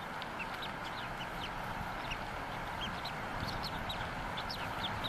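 Bald eagles at the nest giving short, high chirps, a dozen or so scattered irregularly, over steady low background noise.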